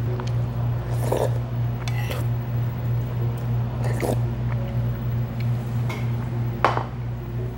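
Eating ramen from a bowl: spoon clicks against the bowl and sips of broth, then a sharper knock a little before the end as the bowl is set down on the table. A steady low hum runs underneath.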